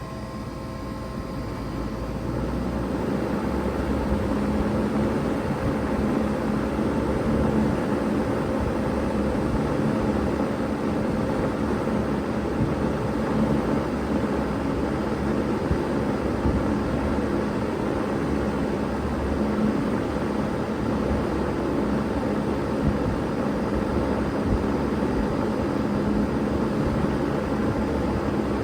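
Bard 3-ton wall-hung heat pump starting up in heat mode: its fan and compressor come up to speed over the first few seconds, then run steadily with a low hum under an even rush of airflow.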